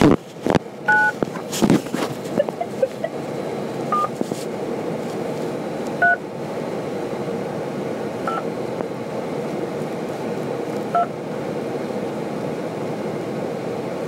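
Telephone keypad touch-tones (DTMF): about five short key-press beeps a couple of seconds apart, spelling a last name into an auto attendant's dial-by-name directory. Under them runs a steady phone-line hiss, and a few loud clicks come in the first two seconds.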